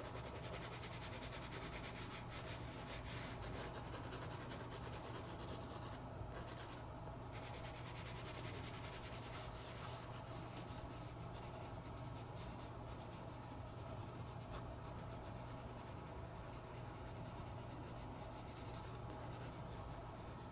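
Graphite pencil shading on sketchbook paper: continuous scratchy back-and-forth strokes as an area of the drawing is darkened. There are two short pauses about six and seven seconds in.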